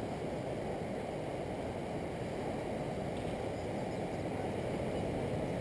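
Steady, low rushing beach ambience, with no distinct events.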